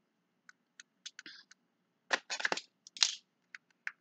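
A perfume box and its packaging being handled and opened to take the bottle out, giving an irregular string of short clicks and crackles, with a busier cluster a little past halfway.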